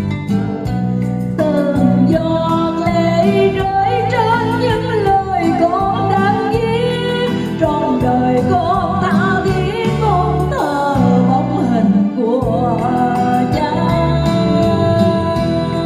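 A woman sings into a microphone over an instrumental accompaniment, her voice wavering with vibrato; she comes in about a second and a half in after a short instrumental passage.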